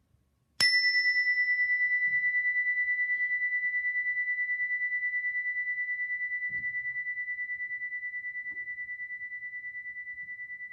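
A chime struck once, about half a second in, ringing at one clear high pitch with a fast wavering pulse as it slowly fades.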